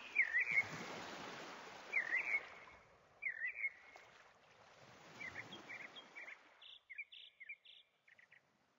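Birds chirping in short, repeated downward-sweeping phrases about every second or so over a soft steady hiss. The hiss fades away and the chirps stop shortly before the end.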